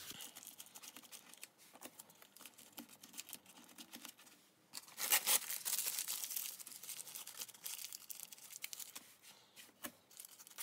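Newspaper crumpling and crinkling with masking tape being torn and pressed on, as small bits of newspaper are taped onto a puppet head. A louder stretch of tearing comes about five seconds in.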